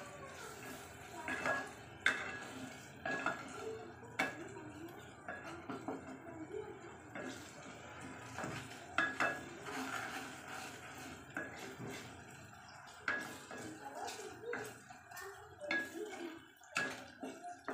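Wooden spatula stirring and pressing tomato masala in a metal pressure cooker, knocking against the pot's side and rim in irregular taps, about one or two a second.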